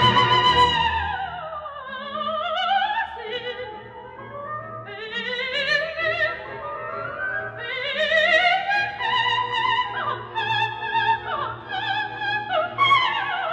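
Operatic soprano singing with a wide vibrato over orchestral accompaniment: a long held high note slides down, then phrases climb and fall, stepping downward note by note, and a quick falling run comes near the end.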